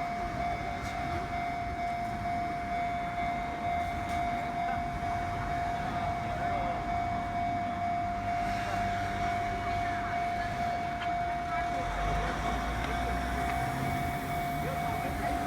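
Railway level-crossing warning alarm sounding at one steady pitch, warning that a train is coming. Near the end the low rumble of an approaching Enoden train rises under it.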